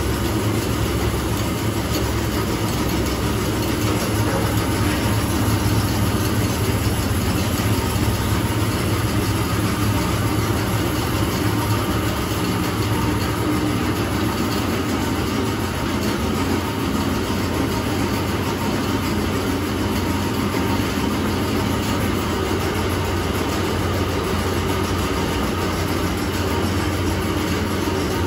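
Bulgur-milling machinery running steadily: a low motor hum under an even rushing of grain flowing through the hopper, sieve and chute.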